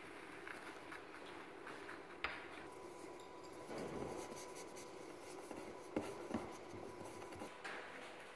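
Faint rubbing and rustling of hands working pistachio-sprinkled phyllo sheets around a thin rolling rod on a worktable. There is a sharp knock about two seconds in and two more around six seconds in, over a faint steady hum.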